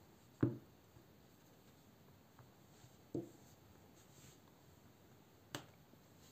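Quiet tool handling on a silicone work mat: a soft knock about half a second in as a screwdriver is set down, another soft knock about three seconds in, and a sharper click near the end.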